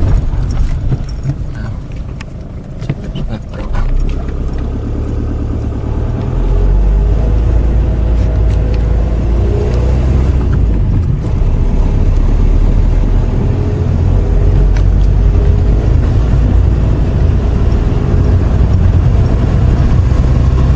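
Car engine and tyre noise heard from inside the cabin while driving. It is quieter for the first few seconds, then becomes a louder, steady low rumble from about six seconds in.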